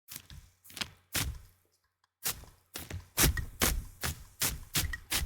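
A small trigger spray bottle squirting water onto a plastic bag stretched over the microphone, in short sharp sprays: a few uneven ones, a brief pause about two seconds in, then a steady run of about two and a half sprays a second.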